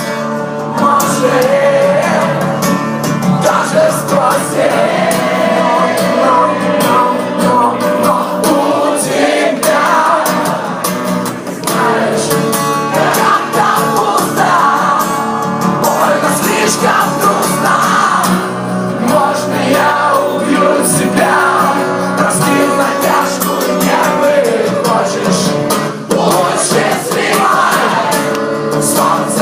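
Live rock band performing a song with sung vocals, loud and continuous, as heard in a concert hall.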